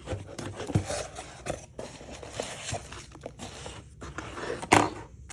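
Packaging being handled and opened by hand: irregular crinkling, tearing and scraping, with one sharp snap near the end.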